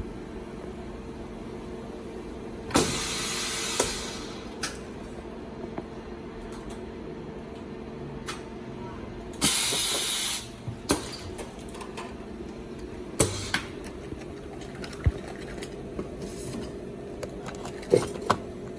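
Semi-automatic high-frequency blister welding machine cycling: twice, about six seconds apart, its pneumatic press gives a sharp click and a hiss of exhausting compressed air lasting about a second, over a steady electrical hum. Short clicks and knocks come between and near the end as the tooling and plastic blisters are handled.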